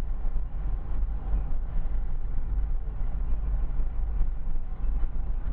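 Steady low rumble of road and wind noise inside a moving car.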